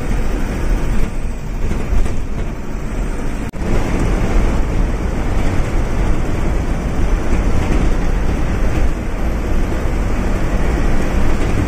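Steady rumble of a bus driving along the road, with a momentary dropout about three and a half seconds in.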